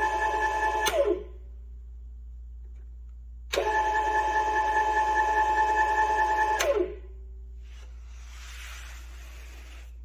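Mini table saw's small electric motor and blade running with a steady high whine, stopping about a second in with a click and a falling whine as it winds down. About two and a half seconds later it starts again abruptly, runs for about three seconds, then clicks off and winds down again.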